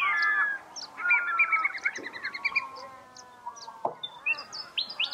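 Several birds calling. A falling call comes at the start, a quick run of repeated notes follows about a second in, and short sharp chirps sound throughout.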